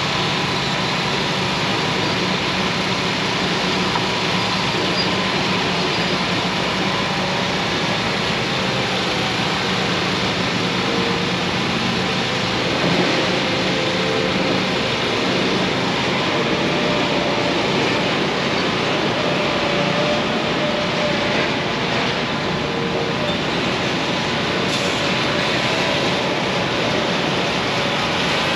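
Concrete mixer truck running steadily, a continuous mechanical drone with faint whining tones drifting in and out.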